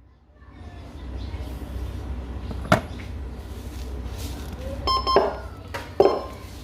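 Electronic siren speaker giving two short blips a second apart between its tone patterns, over a low steady rumble, with a single sharp click a little before.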